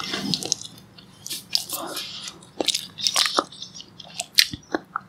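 Close-up biting and chewing of toasted brown bread spread with strawberry jam, with irregular crisp crunches.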